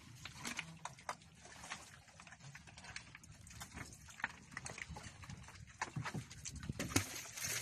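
Scattered clicks, knocks and rustles of a fishing net being hauled and handled against a wooden boat's gunwale, over a low steady hum.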